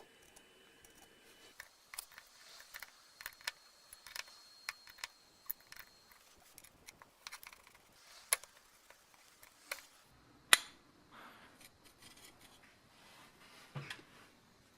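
Irregular sharp clicks and taps of small metal parts and hand tools being handled on a workbench, with one louder click about ten and a half seconds in.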